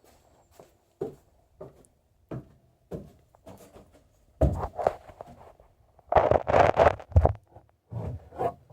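Handling noises: a scatter of light knocks and clicks, then two louder stretches of rustling and scraping about halfway through.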